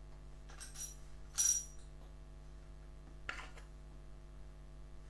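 Small metal battery hardware, nuts, washers and terminal parts, clinking together as it is handled by hand. There are a few light clinks, the loudest about a second and a half in with a brief high ring, and one more a couple of seconds later.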